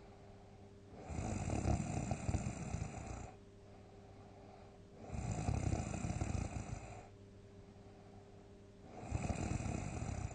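A person snoring loudly: three rough snores, each about two seconds long, coming about every four seconds. The last one is still going as the clip ends.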